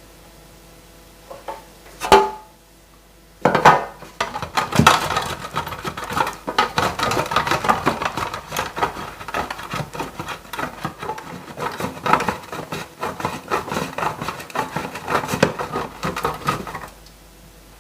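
A single sharp clink about two seconds in, then rapid, continuous scraping or rubbing strokes by hand for about thirteen seconds.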